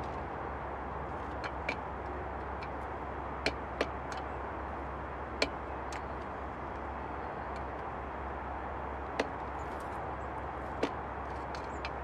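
Great spotted woodpecker pecking at peanuts in a metal tin: about seven sharp, separate taps at irregular intervals over a steady background hiss.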